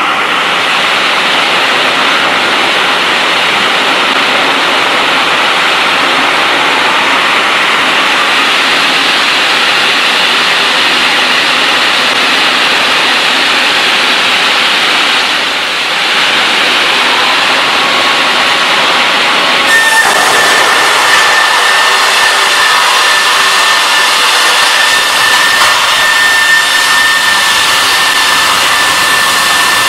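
MJ F6 multi-blade rip saw running loud and steady. About two-thirds of the way through, the sound changes abruptly and a steady high whine comes in.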